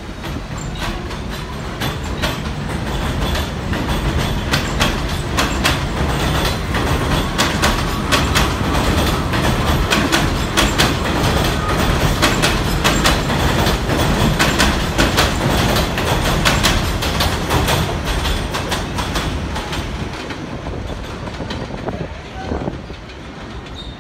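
R68 subway train pulling out of an elevated station, its wheels clicking and clattering over the rail joints. The clatter builds, stays loud through the middle, then fades as the last cars draw away.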